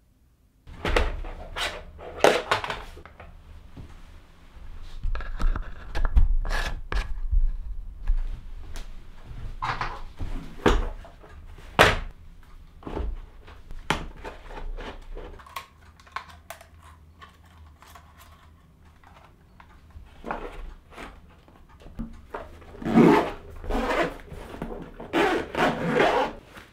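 Handling noises from a hard-shell drone carry case and the drone inside it: irregular thunks, clicks and rubbing as the case is opened and the folded drone is taken out. There are longer scraping stretches near the end.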